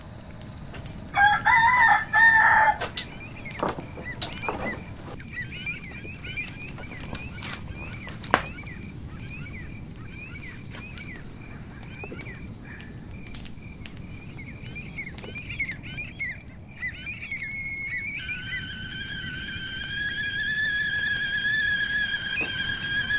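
A rooster crows loudly about a second in. Small birds chirp repeatedly and the wood fire gives a few sharp cracks. From about eighteen seconds, an aluminium kettle on the fire starts whistling with a steady tone that grows louder as it comes to the boil.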